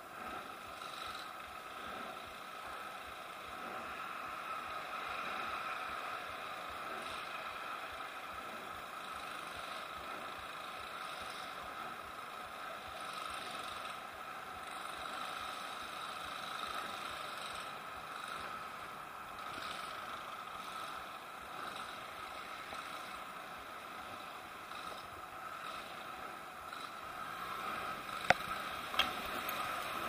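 Steady traffic noise beneath a freeway overpass, with two sharp clicks near the end.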